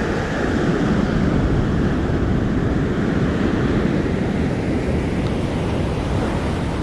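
Surf washing onto the beach, mixed with wind buffeting the microphone in a steady, loud rumbling rush.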